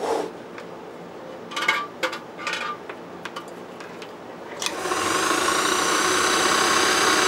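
Handling clicks and short rattles, then about four and a half seconds in an Atlas sewing machine's electric motor starts, rising briefly in pitch as it comes up to speed, and runs steadily.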